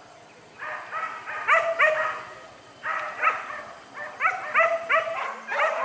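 Boar-hunting dogs barking and yelping in quick, high runs of about three calls a second, with short pauses between the runs.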